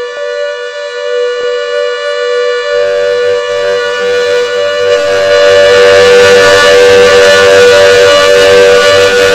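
Civil defence siren sounding one steady tone that does not rise or fall. It grows louder over the first five seconds or so, and a rougher low rumble joins under the tone about three seconds in.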